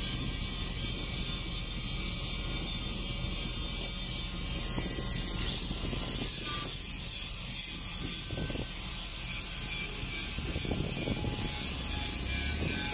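Handheld angle grinders working the ends of steel pipeline pipe, a steady high grinding with a low rumble underneath.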